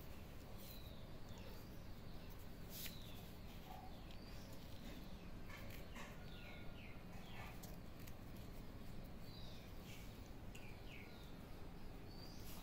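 Small birds chirping now and then, short high falling chirps, over faint steady background noise with a few sharp clicks.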